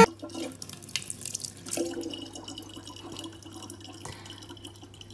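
A thin, steady stream of water from a kitchen tap pouring into the open neck of a plastic water bottle.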